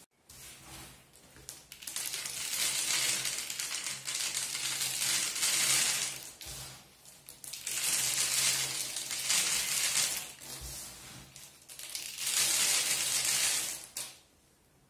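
Handfuls of wooden matchsticks clattering and rattling as they are scooped up and poured into a plastic bottle, in three spells of a few seconds each.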